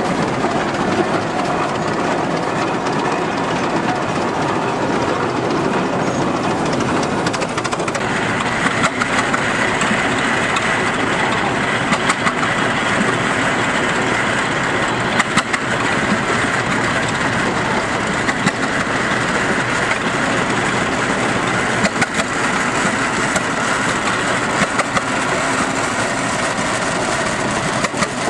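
Engine of a large antique Minneapolis tractor running as it drives past, then the sound changes about eight seconds in to the engine of a second red antique tractor running as it approaches, with a few sharp clicks.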